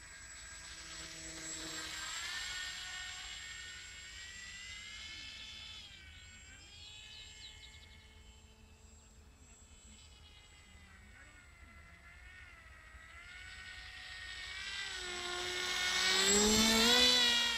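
Radio-controlled model ultralight trike's motor and propeller buzzing in flight, the pitch rising and falling with throttle. It grows louder twice as the model passes, loudest near the end on a low, close pass.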